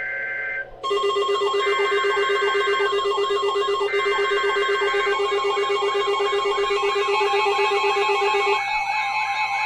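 Overlapping emergency alert tones from weather radio and broadcast receivers, signalling a new severe thunderstorm warning: short bursts of screeching data-header tones that start and stop, steady alert tones, and a warbling siren-like tone that cycles about three times a second.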